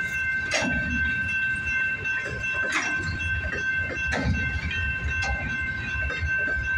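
Long freight train rolling past: a steady low rumble with wheels clacking now and then over rail joints, and a steady high-pitched tone over it.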